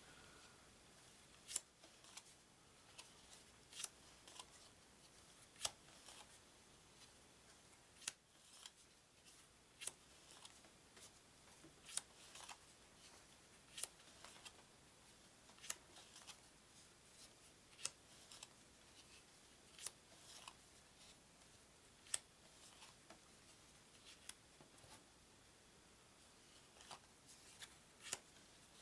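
Stiff card-stock game cards handled one at a time, each laid onto a stack with a short sharp click, about one click every two seconds.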